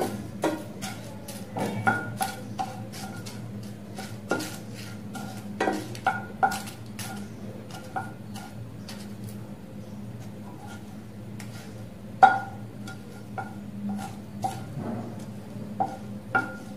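Wooden spatula knocking and scraping in a nonstick frying pan as whole spices are stirred while dry-roasting, with irregular clinks that ring briefly in the pan, the loudest about twelve seconds in. A steady low hum runs underneath.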